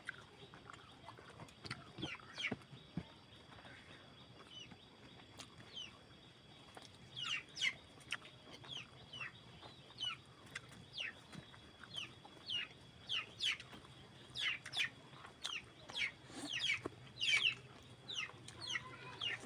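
Birds calling: many short, high calls, each sliding downward in pitch, few at first and coming thick and fast from about seven seconds in.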